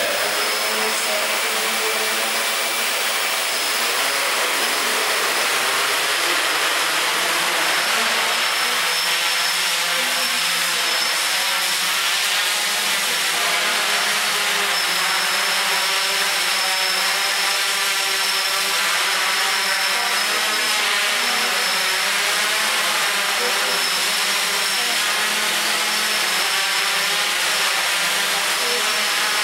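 Electric motors and propellers of a FOX III multirotor running hard, a steady whir whose pitch wavers up and down as the flight controller holds it in a hover. It is carrying a heavy load, 2.3 kg of airframe plus a one-litre water bottle, which draws up to about 20 A on take-off.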